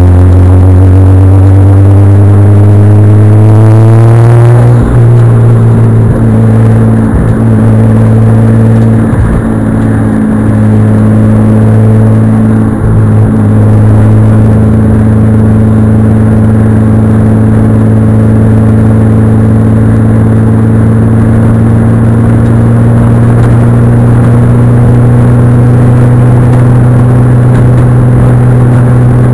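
Nissan Skyline R33 GTS-T's turbocharged straight-six pulling hard on track, very loud at the boot-mounted microphone. The revs climb for the first four seconds or so, break at a gear change about five seconds in, then hold steady, with a few brief lifts of the throttle between about six and thirteen seconds in.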